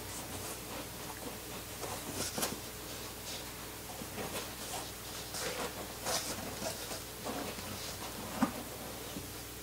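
Scattered soft rustling and scraping of foam and cardboard as hands work a small telescope tube out of its tight-fitting foam packing in a box, with one sharper knock near the end.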